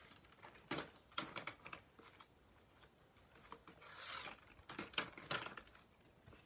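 Faint, scattered clicks and knocks of a baby stroller being lowered down steps one at a time, with footsteps, and a brief soft swish about four seconds in.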